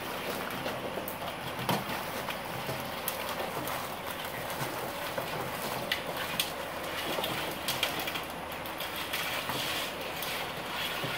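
Boiled crawfish tumbling out of a perforated metal boil basket onto newspaper: a continuous clattering patter of shells, with scattered louder clicks.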